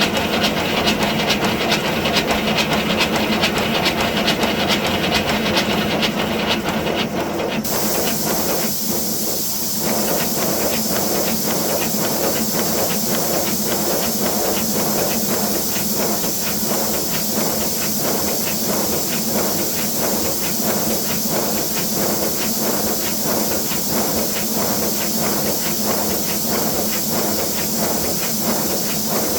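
5-inch gauge BR Class 9F live steam model locomotive running: rapid, even exhaust beats over a continuous hiss of steam. About eight seconds in, the high hiss abruptly changes.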